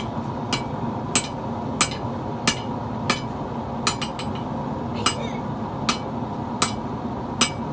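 Hammer striking metal on an anvil in a steady rhythm, about one blow every two-thirds of a second, each blow with a short metallic ring, over a steady low rumble.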